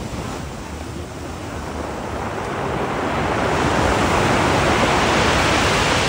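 Heavy Black Sea storm surf breaking and washing up a pebble beach. A steady rush swells louder about halfway through as a bigger wave comes in.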